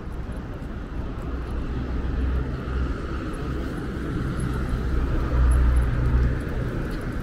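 Road traffic on a busy city street, with a bus and cars passing close by. A low engine rumble builds about two seconds in and is loudest around five seconds in.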